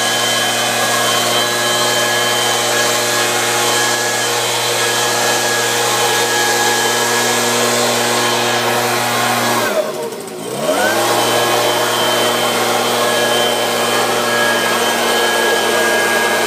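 Handheld STIHL leaf blower running steadily at high speed. About ten seconds in, its pitch drops sharply and climbs back within a second as the throttle is let off and squeezed again.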